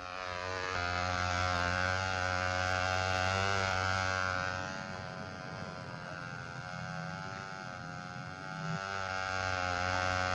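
Small gas engine of a model airplane running with a steady buzz, its pitch wavering slightly and its level dipping a little in the middle.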